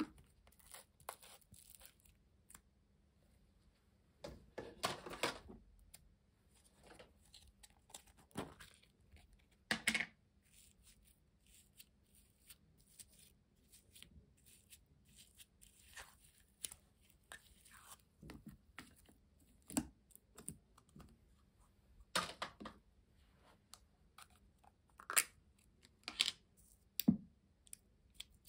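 Hands scooping glitter slime out of small plastic tubs into a plastic bowl: irregular soft sticky crackles, clicks and crinkles of slime and plastic, with quiet gaps between them.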